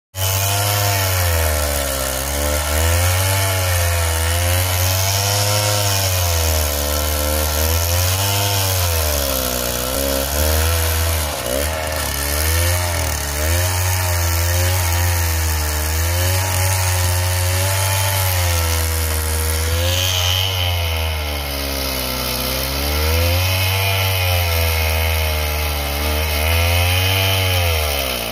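Two-stroke chainsaw running and cutting through a log, its engine speed rising and falling over and over as the chain bites into the wood.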